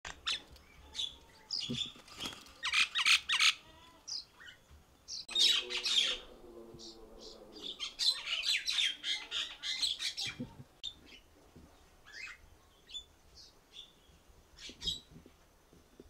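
Mynas calling: runs of harsh squawks and chattering notes, with a lower, longer call about five seconds in and sparser calls near the end.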